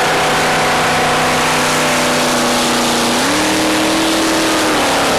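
Supercharged drag boat's engine running flat out as it races across the water: a loud, steady roar whose pitch steps up about three seconds in.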